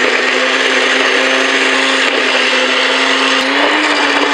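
Countertop blender running, its motor whirring steadily as it blends a pale green liquid, the pitch rising slightly near the end.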